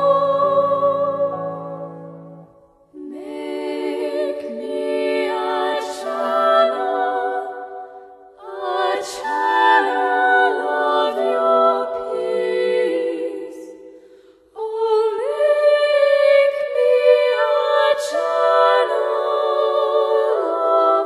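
Slow, melodic music in long phrases, each fading out into a short pause before the next begins.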